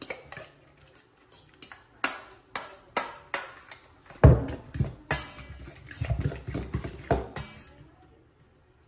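Metal fork clinking and scraping against a stainless steel mixing bowl while stirring a runny egg mixture, in irregular strikes about two a second.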